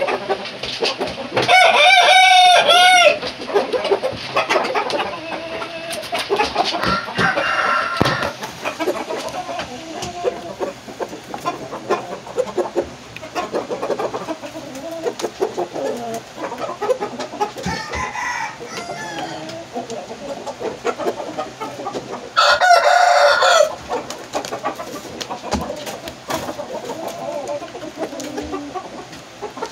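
Rooster crowing loudly twice, once near the start and again about three quarters of the way through, each crow lasting about a second and a half. Between the crows come fainter crowing and clucking.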